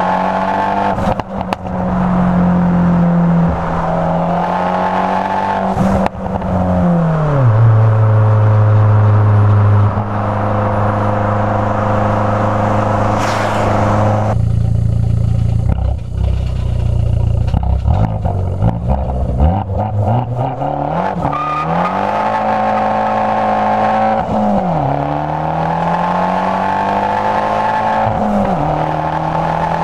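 Fiat 500 Abarth's turbocharged 1.4-litre four-cylinder, with a Borla aftermarket exhaust, heard from inside the cabin while driving. The engine note drops at an upshift, holds a steady low drone while cruising, then climbs again, with two more rise-and-drop upshifts near the end.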